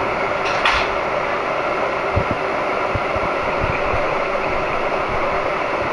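Subway train running: a steady rumble and hiss inside the car, with scattered low knocks and a short rattle about half a second in.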